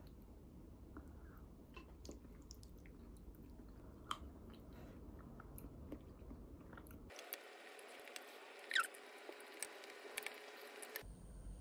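Faint close-up eating sounds: chewing a soft tomato-and-egg stir-fry, with small clicks of a wooden spoon on a ceramic bowl. A short squeak about two-thirds through is the loudest moment.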